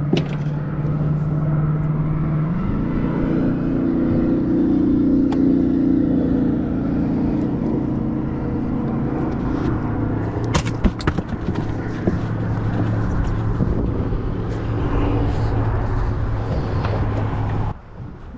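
A motor running with a steady hum, its pitch stepping up about two and a half seconds in and settling lower past the middle. A few sharp knocks and rattles from the ice chest being opened come around the middle, and the hum stops suddenly near the end.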